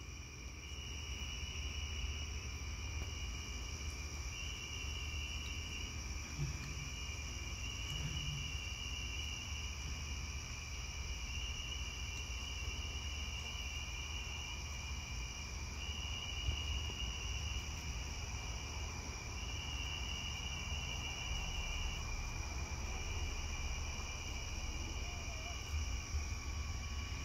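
Night insects, crickets among them, calling steadily in several high tones. One trill comes and goes in stretches of two to three seconds with short gaps between. A low rumble runs underneath.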